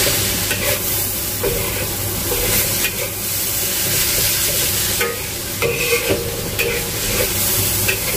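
Noodles, chicken and vegetables sizzling steadily in a wok while a metal spatula stirs and tosses them, scraping and clinking against the pan at irregular moments.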